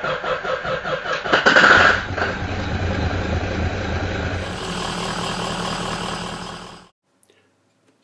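Ford 6.0L Power Stroke V8 turbo-diesel cranking on its starter with a fast, even beat, catching about a second and a half in and settling into a steady run. The sound cuts off suddenly about seven seconds in.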